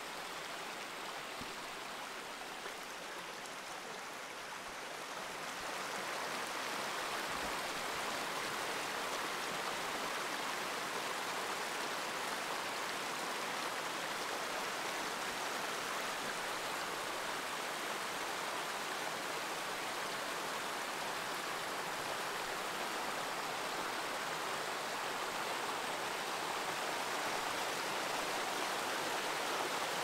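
Running water of a small mountain stream, a steady rush that grows louder about five seconds in.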